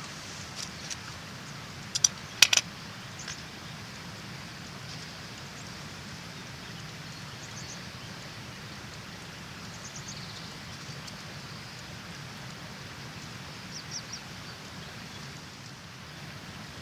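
Steady outdoor ambience: an even hiss like running water. A few sharp clicks come about two seconds in, and short high chirps sound now and then.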